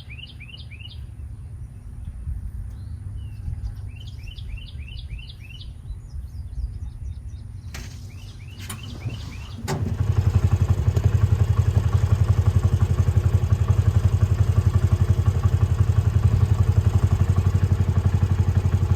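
Birds chirping in short runs of quick falling notes. A little under ten seconds in, after a couple of clicks, a tractor engine starts and settles into a steady, even idle, the loudest sound.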